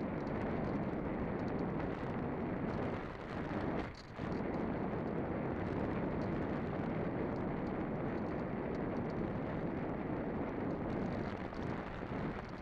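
Wind rushing over the microphone: a steady rush with no motor tone, dropping away briefly about four seconds in.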